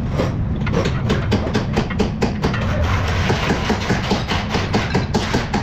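Workshop noise: a rapid, uneven run of clicks and knocks over a steady low rumble.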